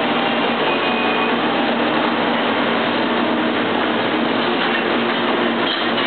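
Dish-room machinery running: a steady mechanical rumble with a constant low hum from the tray conveyor and dishwashing machine.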